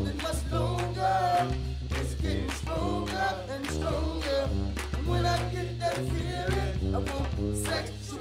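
Background music: a song with a singing voice over held bass notes.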